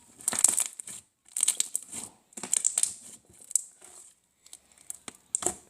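Clear slime being squeezed and pressed by hand for crunches, giving crackly popping bursts about once a second, five or so times.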